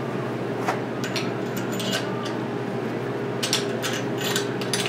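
A few light metallic clicks and clinks as main bearing cap bolts are set into the caps of an LS engine block, most of them near the end, over a steady low hum.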